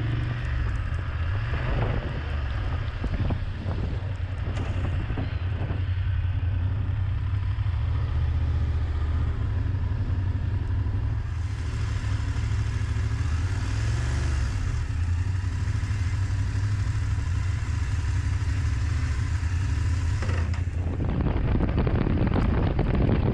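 BMW F750GS parallel-twin motorcycle engine running at low speed, with wind buffeting the microphone. After a sudden cut near the end, a louder, even rush of wind at road speed takes over.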